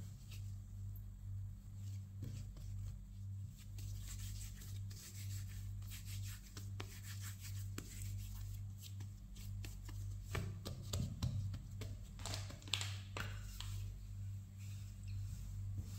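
Hands patting, pressing and rubbing a soft ball of bread dough on a floured wooden board, a string of soft taps and rubs over a steady low hum. Near the end a wooden rolling pin goes onto the dough.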